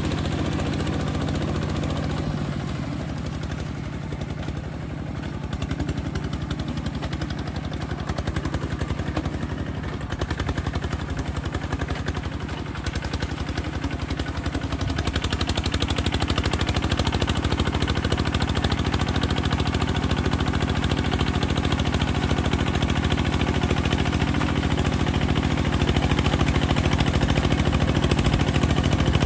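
Small bulldozer's engine running. Its pitch and loudness shift about two seconds in and vary unevenly for a while, then it settles into steady running.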